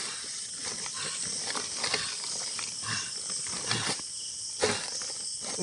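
Crickets chirping steadily in the night, with several short, low noises over them.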